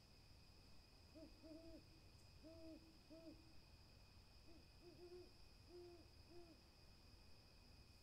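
An owl giving soft, low hoots: two runs of four or five short notes, with a pause of about a second between the runs.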